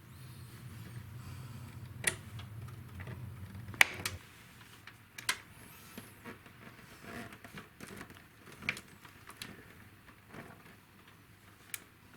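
Scattered clicks and knocks of hardware being handled, the loudest about four seconds in, over a low hum that stops just after it.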